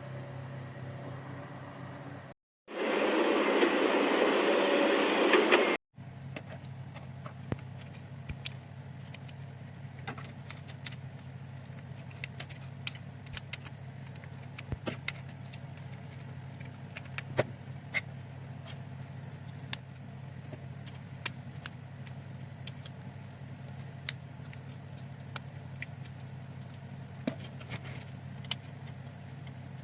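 Small plastic parts of a toy excavator kit clicking and tapping now and then over a steady low hum. A loud burst of noise lasts about three seconds near the start.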